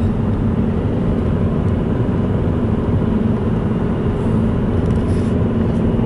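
Steady road and engine noise of a moving car, heard from inside the cabin, with a faint constant hum.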